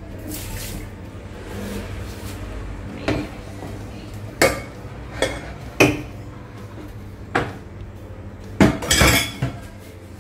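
Clanks and knocks of a black enamelled paella pan holding water being set onto a gas stove's metal grate, a string of separate strikes with the loudest cluster near the end.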